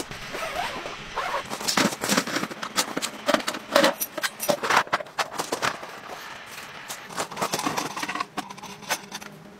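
Camping gear being handled and set down: a quick run of clicks, knocks and light rattles from plastic and metal parts, busiest in the first half and thinning out near the end.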